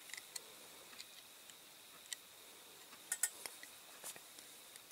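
Small sharp clicks and taps of a plastic windscreen frame being pushed and worked into a Dinky Toys Mini Moke diecast body, with a quick cluster of louder clicks about three seconds in. It is a tight fit that is not going in, which the restorer puts down to the windscreen being too thick with its glass fitted.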